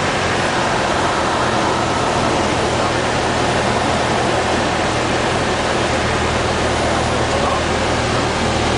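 Cabin noise of a Cessna 172N heard from inside the cockpit: its four-cylinder Lycoming O-320 engine and propeller running steadily under a dense rush of air.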